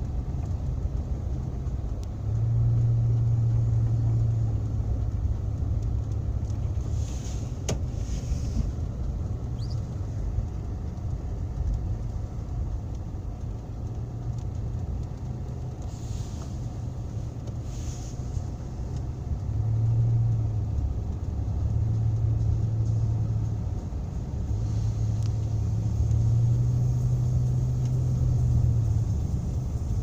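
Car driving on a snow-covered road, heard from inside the cabin: a low engine drone with tyre and road rumble, swelling louder a few times as it speeds up. A few brief high swishing hisses come through near the middle.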